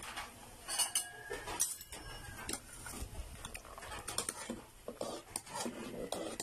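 Metal spoon stirring in a stainless steel pot of soup, with irregular clinks and knocks against the pot's side.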